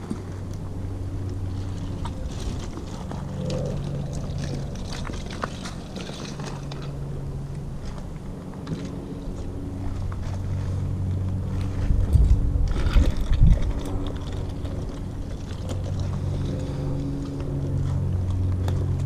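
A steady engine-like hum in the background that fades in and out. About twelve seconds in comes a short cluster of louder low thumps and rustling.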